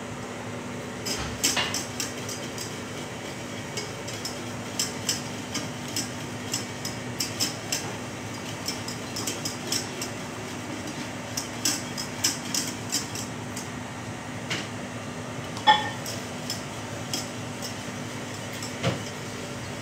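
Wire balloon whisk stirring sugar syrup in a stainless-steel saucepan, its tines clinking irregularly against the pan, with one louder knock about 16 seconds in and another near the end. The syrup is stirred so the white colouring dissolves in it.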